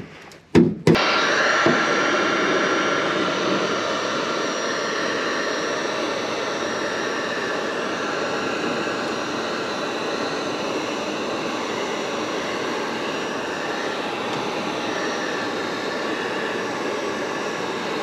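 A few light knocks, then about a second in a Wagner heat gun switches on and its fan blows steadily with a faint whine, heating a PVC conduit rod tube to soften it for bending.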